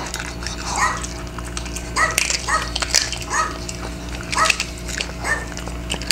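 Recorded dog barks played back, short yaps about once a second, while a Maltese eats kibble with light clicks against its bowl.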